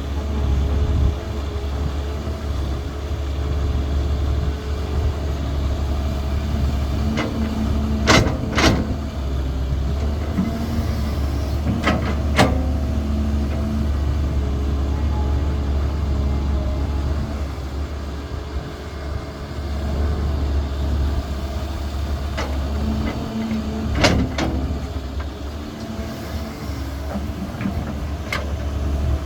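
Diesel engine of a Caterpillar 320 hydraulic excavator running steadily at working speed, with a handful of sharp knocks scattered through, a pair close together about a third of the way in and single ones later.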